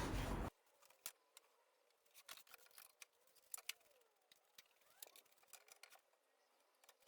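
A steady noise cuts off suddenly about half a second in, leaving near silence broken only by scattered faint clicks and taps.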